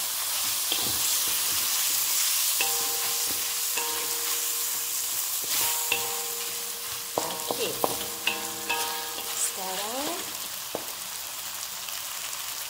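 Beef slices with garlic and ginger sizzling in hot oil in a wok, stirred with a wooden spatula that scrapes and taps against the pan now and then.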